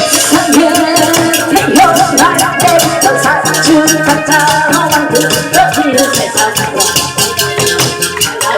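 Gakseori (pumba) performance music: a melody over a fast, steady clacking beat.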